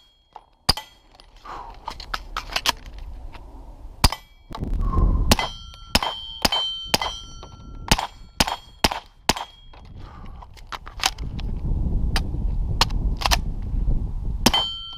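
Suppressed 9mm handgun, fitted with a Griffin Armament Revolution 9 suppressor, firing strings of quick shots, several a second in bursts. A short high metallic ring follows many of them.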